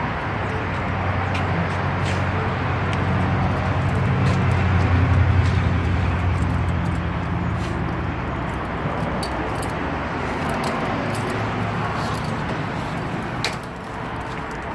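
Road traffic: a motor vehicle's engine rumble swells as it passes close by, loudest about five seconds in, then fades into steady traffic noise, with a few small clicks.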